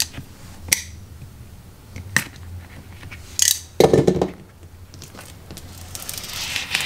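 Sheet vinyl flooring being handled and trimmed with a utility knife: a few sharp clicks, a louder flap and rustle of the sheet about four seconds in, and a crinkling, tearing rustle near the end as a strip is pulled away, over a low steady hum.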